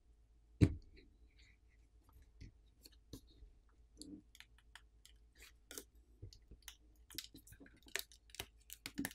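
Plastic pry pick working under a smartphone battery and against the phone's plastic frame while the battery is prised off its adhesive: faint scattered clicks and scrapes. One louder click comes about half a second in, and the clicks come more often near the end as the battery lifts free.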